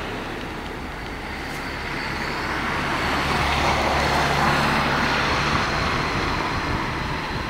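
Valmet Dm7 'Lättähattu' diesel railcar passing, its Valmet 815D diesel engine drone mixed with the wheels running on the rails. The sound swells to a peak about halfway and then slowly fades, with a thin high whine throughout.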